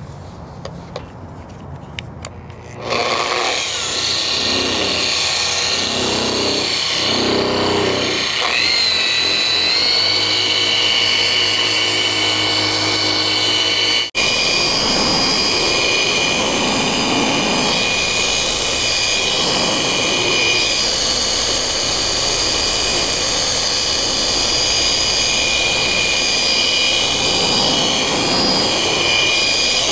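Electric polisher with a foam pad running on a painted steel truck hood, buffing compound into the original paint. Its motor starts about three seconds in and runs with a steady whine, rising in pitch around nine seconds, with a very short break near the middle.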